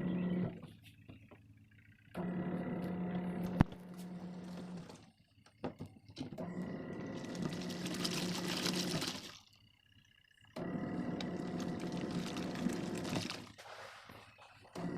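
Sharp ES-T77F twin-tub washing machine running its wash cycle: the motor hums in runs of about three seconds with short pauses between, as the pulsator stops and reverses, and water sloshes in the tub.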